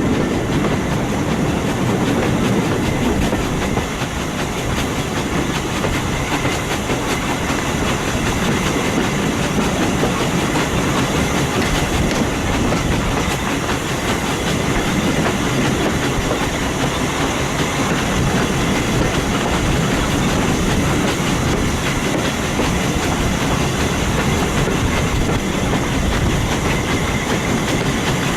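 Heritage train running steadily along the line at low speed, its wheels clattering over the track in an even, continuous din.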